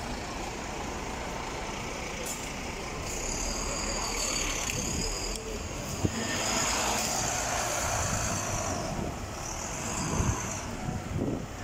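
Busy city-street traffic with buses passing. A high-pitched brake squeal from a bus sets in about three seconds in and holds for several seconds, then comes back briefly near the ten-second mark.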